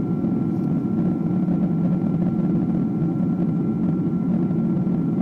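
Steady cabin noise of a Boeing 777-200ER airliner in flight, heard from a window seat by the wing: an even, low rush of jet-engine and airflow noise with a faint steady whine above it.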